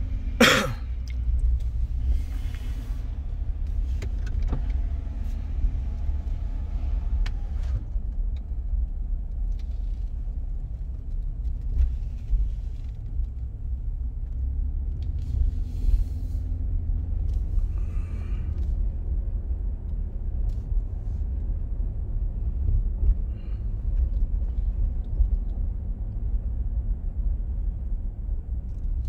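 Steady low engine and road rumble heard inside a moving vehicle's cabin. About half a second in, one short sharp sound sweeps quickly down in pitch.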